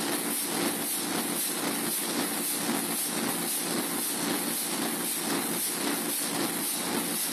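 Large 1933 Burmeister & Wain diesel engine running steadily: a continuous mechanical hum and hiss with a faint regular beat of about two to three pulses a second.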